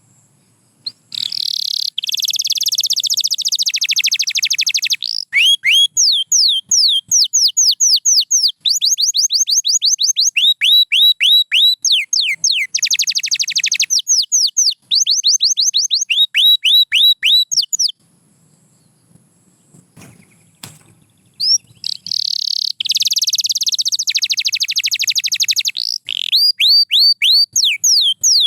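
Domestic canary singing: fast rolling trills alternate with runs of repeated downward-sliding whistled notes, about four or five a second. The song breaks off for about three seconds midway, with a couple of faint clicks, then resumes.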